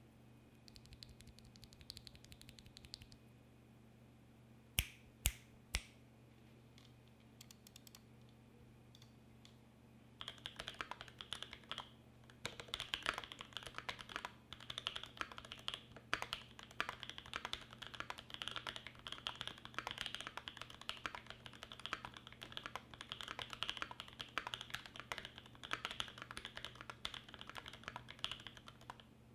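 Typing on a Primus75 mechanical keyboard with lubed Creamcicle switches on an aluminium plate and GMK keycaps. A few light keystrokes come first, then three sharp, louder clacks about five seconds in. From about ten seconds in there is continuous fast typing.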